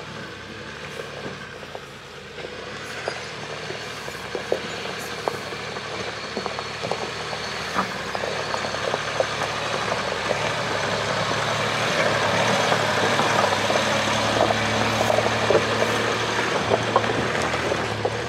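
Land Rover Discovery's 2.7-litre TDV6 diesel engine pulling up a steep rocky track, growing louder as it comes closer, with many short clinks and knocks from the rear snow chains striking stones.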